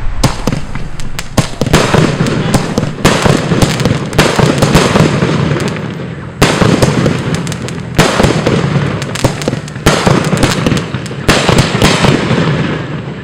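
Prisma Willow Probox 100-shot firework cake firing in rapid succession: a dense, continuous string of shots and bursts, with louder bangs every second or two.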